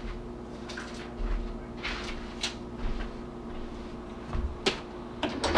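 Scattered light clicks and knocks of a spice container and measuring spoon being handled, over a steady low hum.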